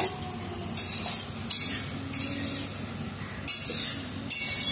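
A metal utensil scraping and clinking against a steel pot, in about five short bursts.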